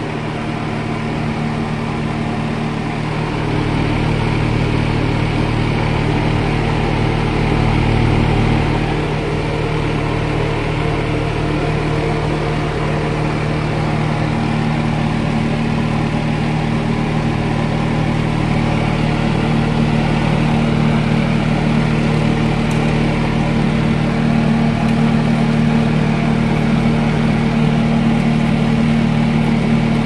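Electric fan motor of a homemade air cooler running steadily: a constant hum over a rush of moving air, growing a little louder about three seconds in.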